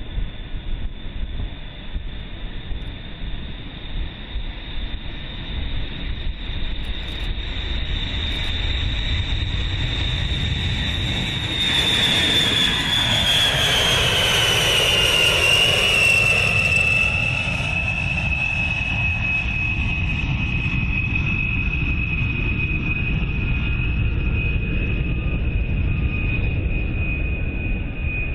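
Boeing B-52 Stratofortress bomber taking off on its eight jet engines: a steady high whine over a deep rumble. The whine drops in pitch as the bomber passes close by, about halfway through and at its loudest, and the rumble carries on as it climbs away.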